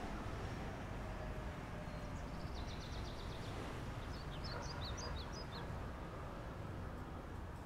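Woodland ambience: a steady low background rumble with small birds chirping. There is a quick trill about two and a half seconds in and a few short chirps around five seconds.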